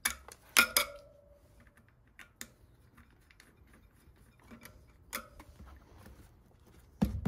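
Scattered sharp clicks and clacks of an air inflator's hose chuck being pushed and clamped onto the valve stem of a fat bike tire, with a heavier thump near the end. No pump motor is running yet.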